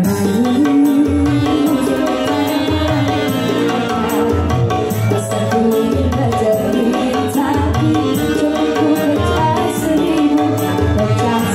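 Live dangdut music: an electronic keyboard with a tabla-like kendang drum rhythm, and women singing into microphones over a PA system.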